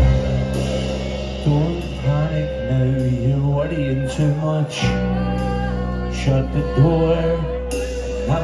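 Live band music between sung lines: a melodic lead line over a sustained bass, with occasional drum or cymbal hits.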